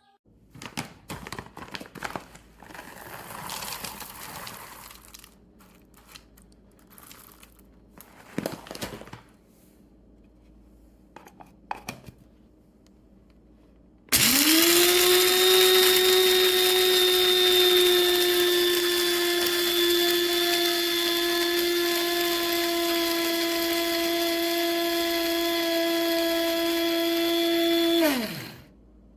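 Scattered clicks and handling noise, then about halfway through an electric blade coffee grinder's motor starts abruptly and runs with a steady high whine for about fourteen seconds before winding down, falling in pitch, near the end.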